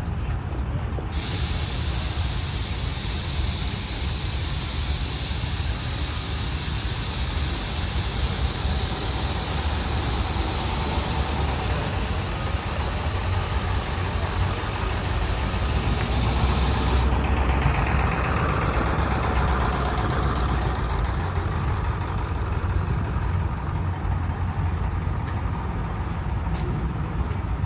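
A steady high hiss of pressure venting starts about a second in and cuts off sharply about two-thirds of the way through, over a constant low rumble of engines running.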